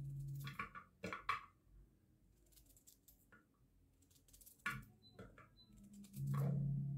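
Knife slicing a red onion by hand, with pieces dropping into a steel bowl: a few short, sharp clicks and taps. A low steady hum, louder than the cutting, fades out about half a second in and comes back near the end.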